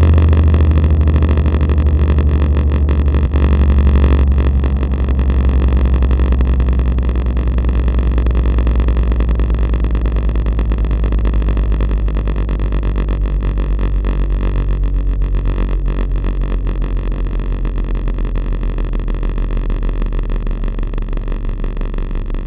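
Siren droning at a low pitch, steady and continuous, slowly sinking and fading.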